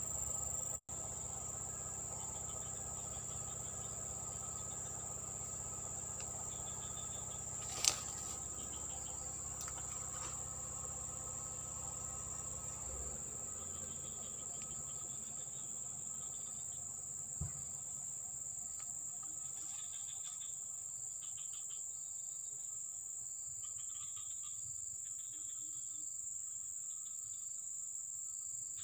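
Insects droning steadily at a high pitch, with other insects chirping in short repeated trills. A sharp click about 8 seconds in and a low thump about 17 seconds in.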